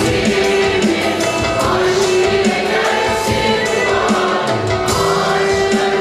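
Mixed choir of men and women singing a Turkish art music (Türk Sanat Müziği) song, with instrumental accompaniment and a light, regular percussion beat.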